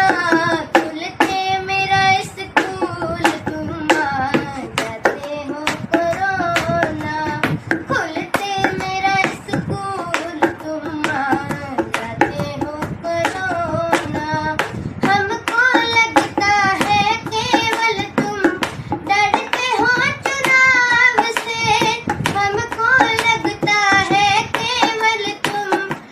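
A child singing a song, kept in time by a steady beat of hand strikes, about three a second.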